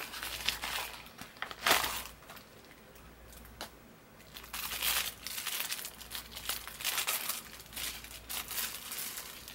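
Plastic packaging crinkling as it is handled and opened, in irregular bursts, with a loud rustle just under two seconds in and a quieter stretch before the rustling picks up again.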